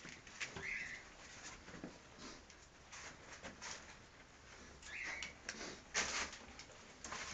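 Puppies giving two short, high squeaks, about a second in and again about five seconds in, amid the rustling of newspaper under moving dogs. The loudest rustle comes about six seconds in.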